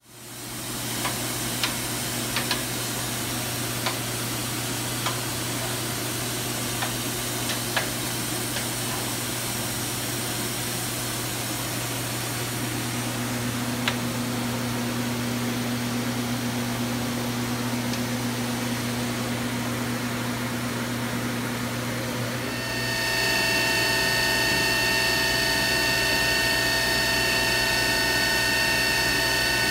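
CNC vertical machining center running with a steady hum and a few sharp clicks. About 23 seconds in it grows louder as the spindle comes up to speed, and a steady whine of several high tones sets in.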